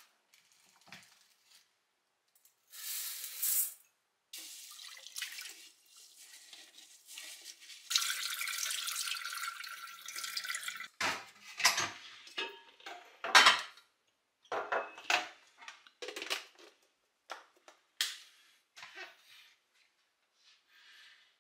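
Tap water running into a stainless steel sink while rice is rinsed in a rice cooker's inner pot. About eleven seconds in this gives way to a series of sharp knocks and clatters of the pot against metal.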